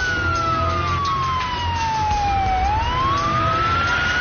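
Ambulance siren in a slow wail: its pitch falls steadily for about two and a half seconds, then rises again, over a low rumble of the moving vehicle.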